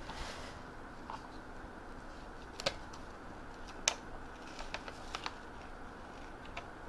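A few faint, sharp clicks and crinkles of a plastic heat transfer vinyl carrier sheet being handled and tried for peeling, scattered over a steady low room hiss.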